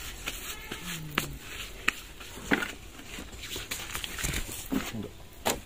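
Irregular light knocks and clicks, a few scattered over several seconds, over low background noise, with a brief faint voice-like tone about a second in.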